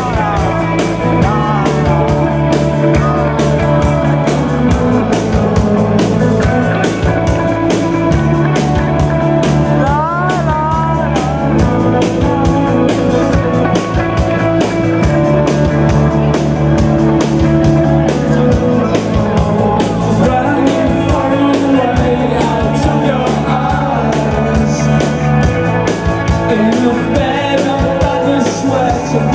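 Live rock band playing: electric guitar, bass guitar and drums driving a steady beat, with a sung lead vocal over them.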